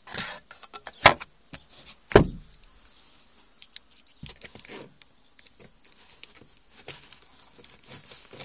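Plastic clicks and knocks from a Volkswagen Polo's sun visor being handled, as the vanity-mirror flap and the visor snap shut. Two sharp snaps come about one and two seconds in, the second with a dull thump, followed by lighter clicks and a brief scraping rub.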